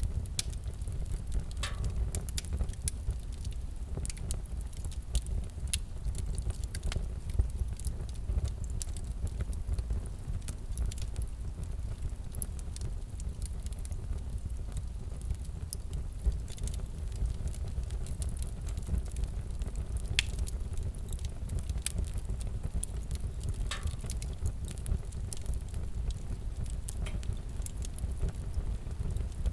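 Fireplace fire crackling: a steady low rumble of burning logs with frequent irregular snaps and a few louder pops.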